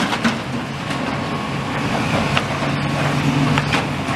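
Outdoor engine noise from a motor vehicle or machine, with a steady low hum that sets in about halfway.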